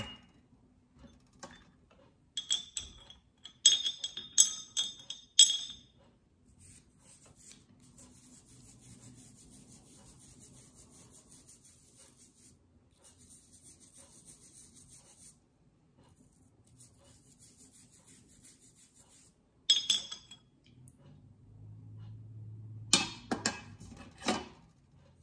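Toothbrush bristles scrubbing a small rock in three stretches of a few seconds each, a steady high scratching. Sharp clinks on glass bowls come before and after the scrubbing.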